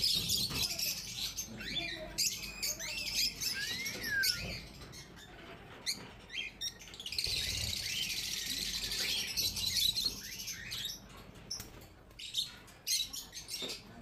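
Caged Alexandrine parakeets chirping and calling in short whistled notes that swoop up and down. A few seconds of dense, high chatter come in the middle, and scattered sharp clicks follow near the end.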